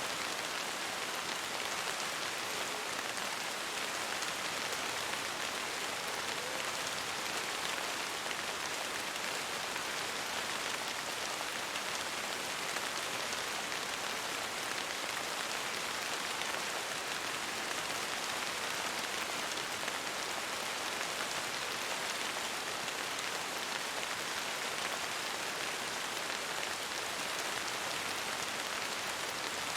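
Steady rain falling on a window pane: an even, unbroken hiss with no single drops standing out.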